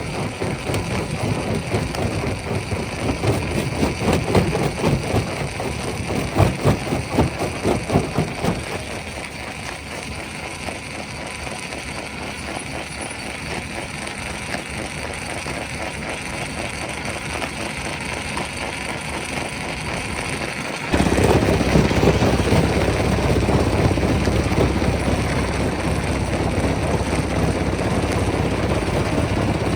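Rock-crushing machine running, with a dense, irregular clatter of stone being broken for the first several seconds, then a steadier run; about 21 seconds in the sound jumps suddenly louder.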